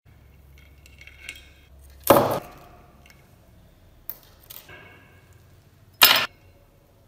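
Steel parts of a TT-30 pistol clicking lightly, each time followed by a loud, sharp metallic snap with a brief ring. The snaps come twice, about four seconds apart.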